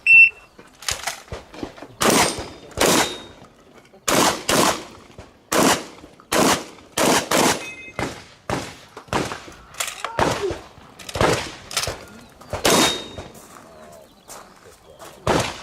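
Shotgun fired repeatedly in practical shooting: about fifteen shots in quick irregular strings, often half a second to a second apart, each with a short echo. A short high beep sounds right at the start.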